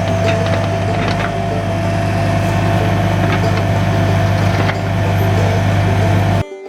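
An engine runs steadily with a constant high whine over a low hum and a few sharp knocks. It cuts off suddenly near the end.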